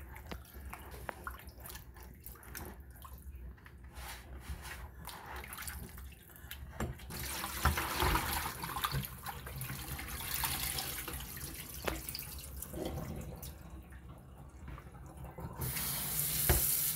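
Hands squishing and splashing raw oxtail pieces in a plastic bowl of lime water. About seven seconds in, the liquid is poured off into a stainless steel sink. Near the end the kitchen faucet comes on and runs steadily into the bowl to rinse the meat.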